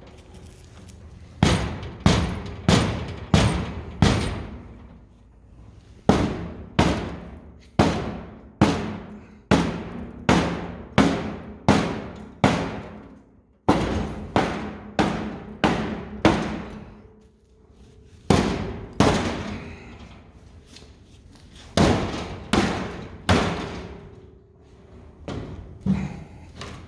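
Rubber hammer pounding a dent out of a rusty steel truck fender: runs of sharp blows, about two a second with short pauses between runs, the sheet metal ringing briefly after each strike.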